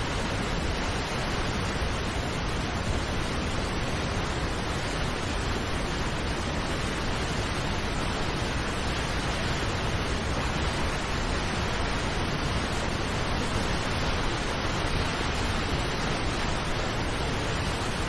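Large waterfall rushing: a steady, unbroken noise of heavy white water pouring through a rocky gorge.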